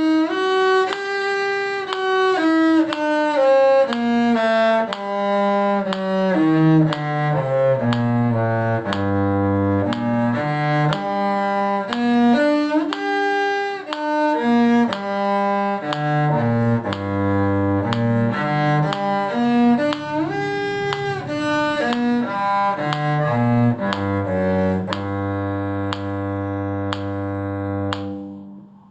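Bowed string instruments, cello among them, playing a G harmonic minor scale and arpeggio over two octaves, note after note in an even tempo. The run ends on a long held low note that stops just before the end.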